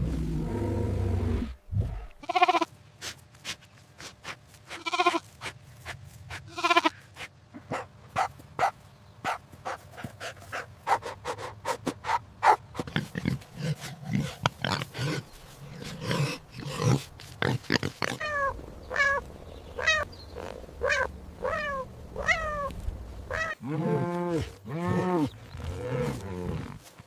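A run of different recorded animal calls, one after another. A short low call comes first, then three longer pitched calls, a long stretch of quick clicking sounds, a series of short falling calls, and a few deep calls near the end.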